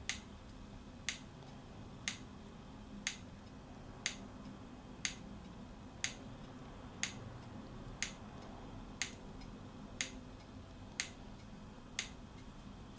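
Kima microfluidic pump running its wash cycle, giving a sharp click about once a second as it delivers each pulse of fluid.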